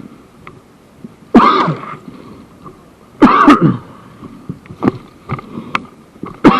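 A person close to the microphone coughing, three harsh bursts each falling away over about half a second, with a few faint clicks in between.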